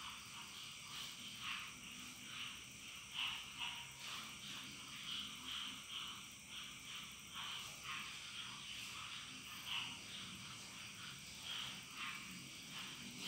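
Faint background of small animal calls: short, irregular chirps, several a second.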